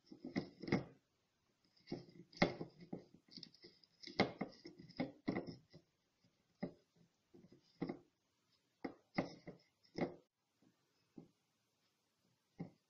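Faint, irregular rustling and tapping from hands tying string around the end of a sausage netting stretched over a plastic drain pipe. The sounds are dense for the first ten seconds or so, then thin out to a few taps.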